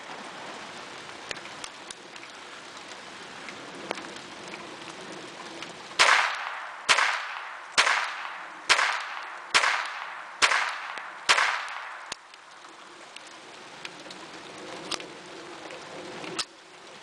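Seven shots from a Beretta 950B Minx pocket pistol firing .22 Short, in a steady string about one shot a second. Each is a sharp crack that trails off briefly.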